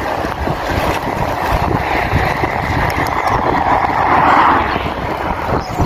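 Wind rushing over the microphone of a handlebar-mounted camera on a fast-moving bicycle, with a car passing in the oncoming lane, its tyre noise swelling to a peak about four seconds in and then fading.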